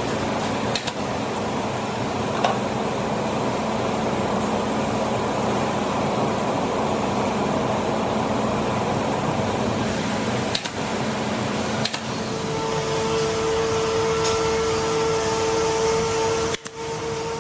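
Steady machinery noise in a tire-retreading shop, with a few sharp clicks. In the last third a steady high whine joins in, from a pneumatic hand tool running.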